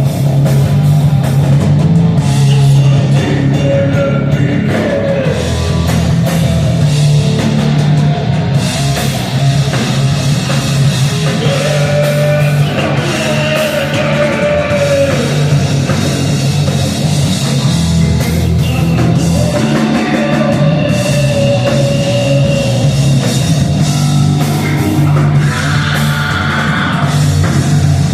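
Live heavy rock band playing: distorted electric guitars, bass and drum kit, with a sustained guitar melody line over a steady low riff.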